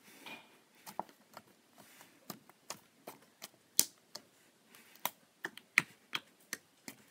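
Lavender slime being poked, pressed and pulled with the fingers, giving an irregular run of sharp sticky clicks, two or three a second.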